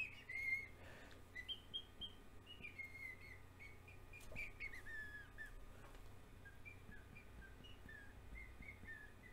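Faint bird chirps: short, high whistled notes scattered throughout, some sliding down in pitch, over a low background hum.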